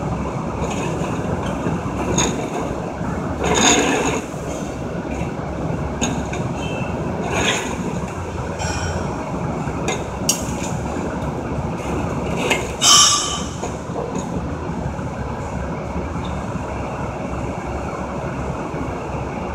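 Steady workshop background noise with a few short metallic knocks and scrapes as a welded metal pipe tee is handled and turned, the loudest about four and thirteen seconds in.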